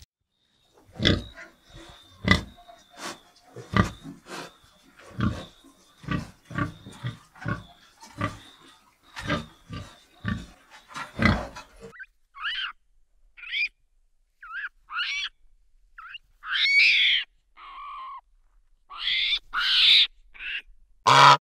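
Animal calls: about a dozen short, irregular grunts, then from about halfway a series of higher, arching calls.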